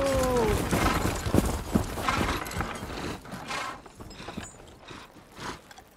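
Horse-drawn stagecoach slowing to a stop on snow: hooves clopping with the rattle and creak of harness and coach, fading out as the team halts. A falling call sounds right at the start.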